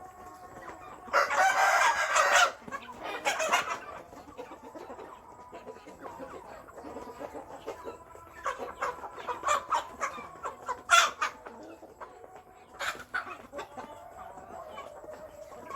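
Chickens clucking, with a rooster crowing loudly about a second in. A string of short clucks and calls follows in the second half.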